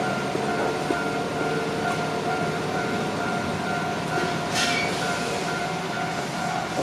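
Shizuoka Railway electric commuter train running past on the rails, a steady rumble of wheels and track with a steady ringing tone over it. A brief hiss comes about four and a half seconds in.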